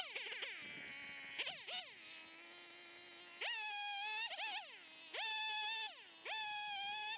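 Chainsaw idling, then throttled up about three times, each time held at full speed for a second or so and let back down to idle, as it does while bucking firewood logs.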